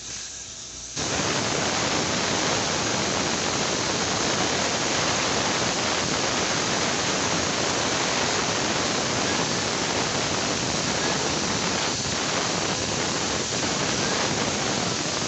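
A steady rushing noise, even and without any tone, that starts suddenly about a second in.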